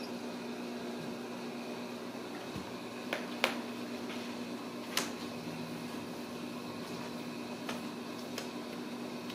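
Steady low room hum, with a few sharp taps and clicks, the loudest about three and a half and five seconds in, as kittens scramble over a cardboard scratcher on a tile floor.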